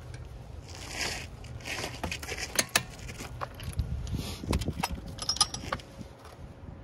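Metal hand tools and sockets clinking and rattling as they are handled, with scattered sharp clicks and a few short scuffing swishes.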